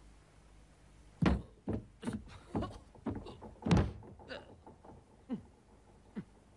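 Cartoon sound effect of a wooden cabin door: a run of about eight heavy thuds and knocks over some three seconds, followed by two short sounds falling in pitch.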